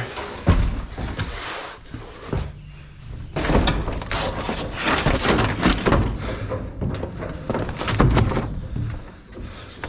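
Nail-ridden wooden lath and debris being tossed and stacked into a haul load: a heavy thump about half a second in, then a long run of irregular knocks, clatter and scraping of wood on wood.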